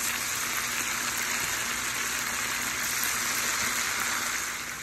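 Flour-and-egg-breaded chicken thigh pieces deep-frying in hot oil, a steady sizzle during their second fry.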